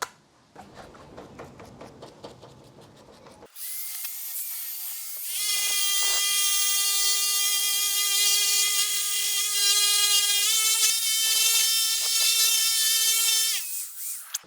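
Orbital polisher buffing a headlight lens with polishing compound: a steady high whine that steps slightly higher in pitch about ten seconds in, then winds down and stops near the end.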